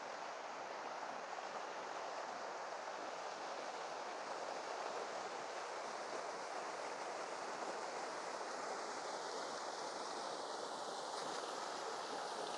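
A fast-flowing mountain creek rushing over rocks: a steady, even sound of running water, a little louder after the first few seconds.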